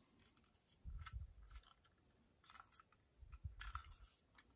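Faint handling noise of a small plastic toy train engine being turned over in the hands: a couple of soft bumps with light plastic clicks and rubs.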